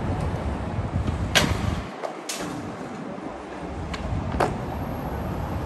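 Skateboard wheels rolling on street asphalt with a low rumble, broken by several sharp clacks of the board. The loudest come about a second and a half in and just after two seconds, with smaller ones near the end.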